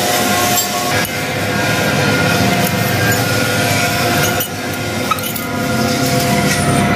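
Steel chain links clinking as they are handled and hooked together, over a loud steady droning hum with a few sharp metallic clicks.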